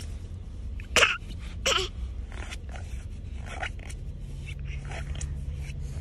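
Two short, breathy cough-like vocal bursts close together about a second in, over a low steady rumble, followed by a few faint small sounds.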